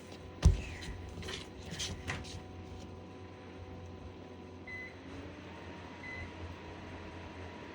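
Ceiling fan motors running with a steady hum. A sharp thump comes about half a second in, then a few lighter knocks, and two short high beeps sound about five and six seconds in.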